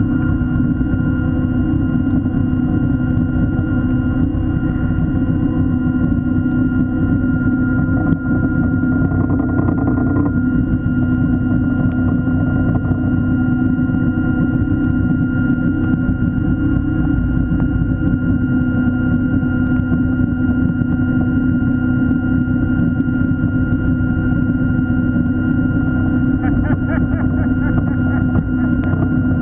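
Electric motor of a diver propulsion vehicle (underwater scooter) running steadily underwater: a constant low hum with a higher whine over it.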